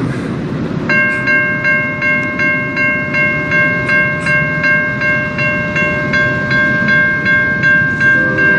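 Railroad crossing warning bell starting about a second in and ringing steadily, about two and a half to three strikes a second, as the crossing signals activate for an approaching train. A steady low rumble runs underneath.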